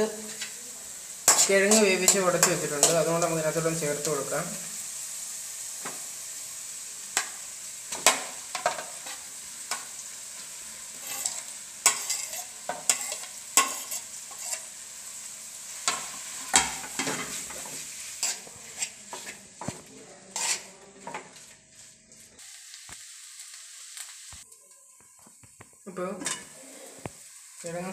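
Vegetables frying in a metal kadai on a gas stove: a steady sizzle, with a spoon stirring and knocking against the pan in sharp clicks every second or so. The sizzle drops much quieter near the end once the pan is lidded.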